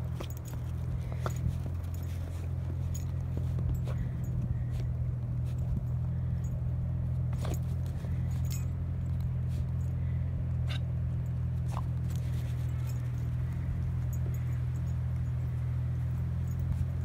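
A steady low hum runs throughout, with scattered light crunches and clicks over it.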